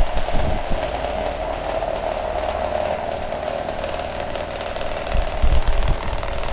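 Max Star 18-inch 70 W pedestal fan running: a steady motor hum with a rush of air, and low rumbling that swells about five seconds in.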